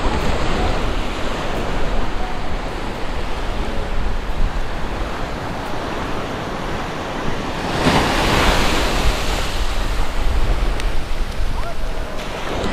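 Ocean surf washing up on a sandy beach, with wind buffeting the microphone; one wave breaks louder about eight seconds in.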